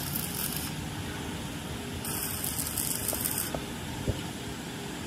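Steady workshop noise with two stretches of high hiss and a single sharp knock about four seconds in.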